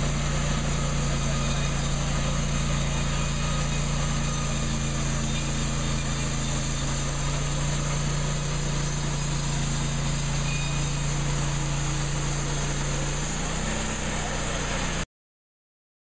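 Engine of an EZ Boardwalk portable band sawmill running steadily under load while the band blade saws through a log. The engine note dips slightly near the end, and the sound then cuts off abruptly.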